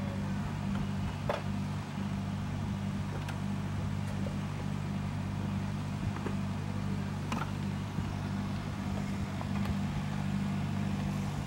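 A motor or engine running steadily with a low, even hum, with a few faint clicks now and then.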